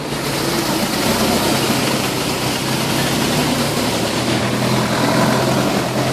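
A heavy vehicle engine running steadily, its low hum under a loud, even rushing noise that grows louder right at the start.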